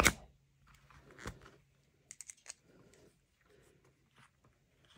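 Light clicks and handling rustles from a Japanese screw hole punch being pressed down into a bag flap, with a quick run of small clicks about two seconds in.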